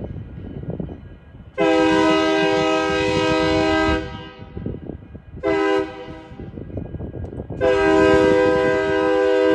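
Union Pacific SD70M locomotive's multi-chime air horn sounding a grade-crossing signal as it approaches the crossing. It gives a long blast, a short one, then a further long blast that is still held at the end.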